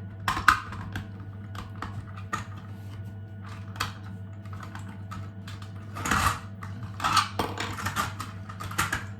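Small 3D-printed plastic parts clicking and clattering as they are handled and slid together, in irregular light taps with a busier rattle in the second half, over a steady low hum.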